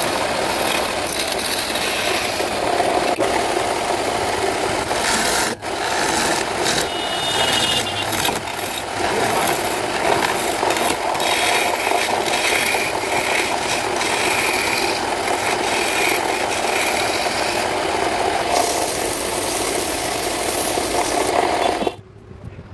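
A hand-held chisel cutting a spinning wooden workpiece on a wood lathe: a steady rasping scrape of the tool on the wood, over the running lathe. The sound drops off sharply near the end.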